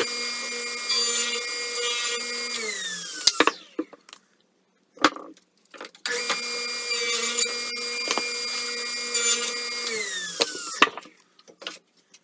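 Table saw running with a steady whine, switched off and spinning down about three seconds in. A few knocks of the plywood and sled being handled follow, then the saw starts again about six seconds in, runs, and spins down once more near the end, with more knocks after.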